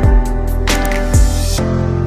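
Background music: held chords over a beat with a deep falling kick drum and crisp percussion strokes.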